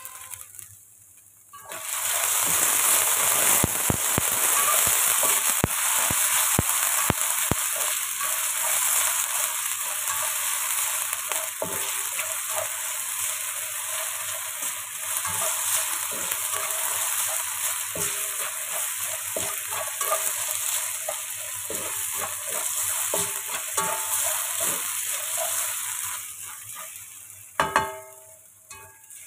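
Diced potatoes sizzling steadily as they fry in a hot pan, with scattered clicks of a utensil against the pan as they are stirred. The sizzle starts about two seconds in and dies away near the end.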